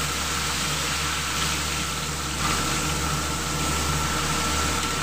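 Floured chicken pieces deep-frying in a wok of hot oil, sizzling steadily, over a constant low hum.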